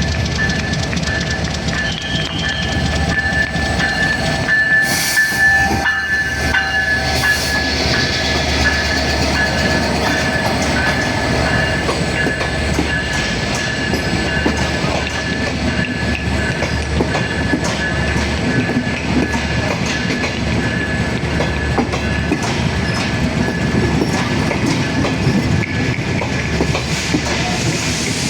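Banalata Express passenger train running into a station, its wheels clattering over the rail joints. A steady high whine runs under the rumble throughout.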